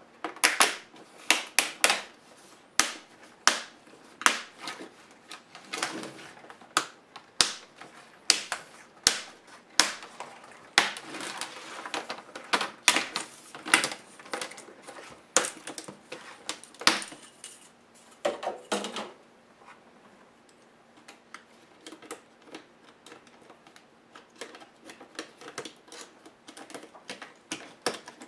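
Plastic display bezel of a Compaq CQ70 laptop being pried off by hand: a long irregular run of sharp clicks and snaps as its clips let go. The clicks stop about two-thirds of the way through, leaving only faint ticks of handling.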